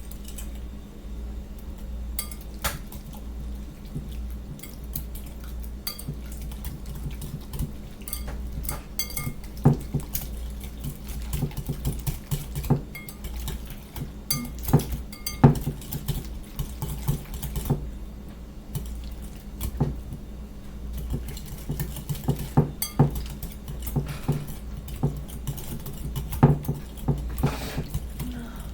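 A utensil stirring food in cookware, with irregular clinks and taps against the side, over a steady low hum.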